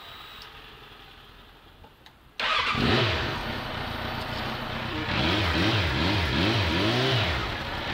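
Suzuki Bandit 650 (GSF650 K7) inline-four engine running through a Yoshimura R77 exhaust with its silencer insert fitted. It cuts in suddenly about two and a half seconds in, running steadily at first and then revved in a string of quick throttle blips that rise and fall in pitch.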